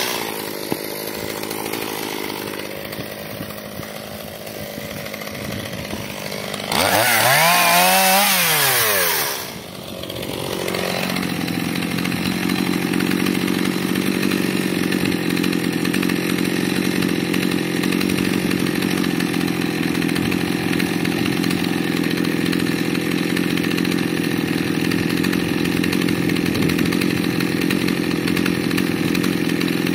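Stihl MS181 two-stroke chainsaw dropping to idle after a cut. About seven seconds in it is revved up once and let back down, then it idles steadily at about 2,700 rpm, the revs holding even.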